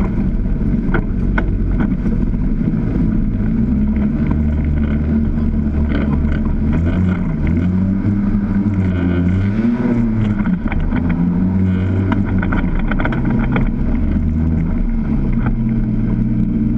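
Side-by-side UTV engine running under load on a rough off-road trail, its note rising and falling with the throttle, with scattered knocks and clatter.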